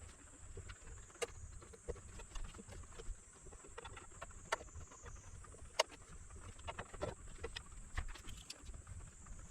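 Scattered light clicks and taps at an irregular pace, from small tools and parts being handled on a workbench, over a faint steady high hiss.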